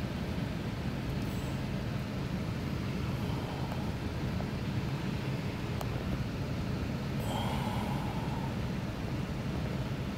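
Steady low vehicle rumble heard from inside a car's cabin, with a short higher-pitched sound about seven seconds in.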